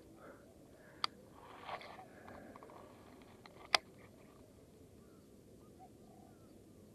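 Baitcasting reel being handled: two sharp clicks, about a second in and again near four seconds, with a short rustle between them.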